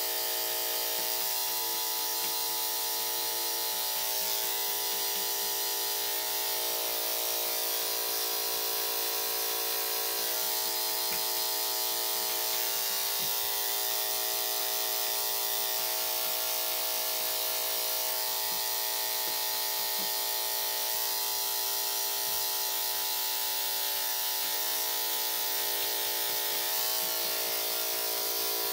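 Corded electric dog grooming clippers running with a steady hum while they trim the fur between a dog's paw pads.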